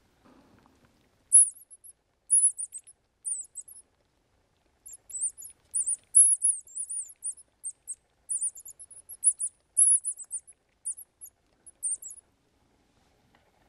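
Mouse-squeak predator call of wood and metal blown in irregular series of short, very high, thin squeaks, each rising and falling in pitch, imitating a mouse to lure foxes and other predators.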